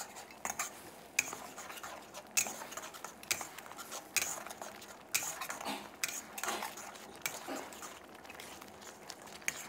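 Metal ladle stirring a thick chili sauce in a metal pan, scraping and clinking against the pan about once a second while the sauce simmers down to thicken.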